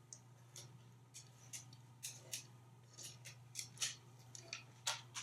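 Faint, sharp, irregular clicks, about two or three a second, over a steady low hum.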